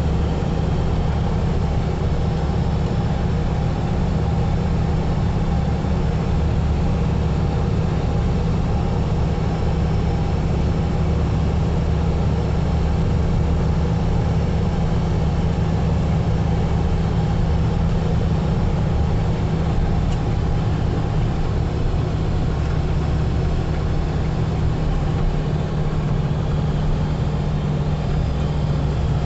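A car's engine and road noise, a steady low hum that holds even throughout.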